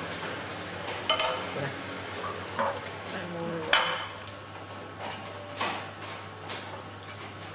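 Cutlery and ceramic plates clinking and scraping on a table, with sharp clinks about a second in and a louder one near the middle.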